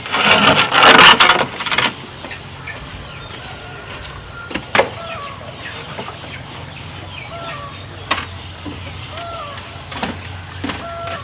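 Bamboo work sounds: a loud noisy burst lasting about two seconds, then three sharp knocks spaced a few seconds apart, with faint short chirps in the background.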